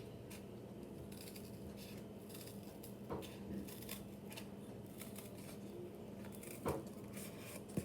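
Scissors snipping and crunching through stiff, thick cardboard in scattered short cuts, with a louder snip about three seconds in and another near the end; the cardboard is hard to cut with these scissors. A faint steady hum sits underneath.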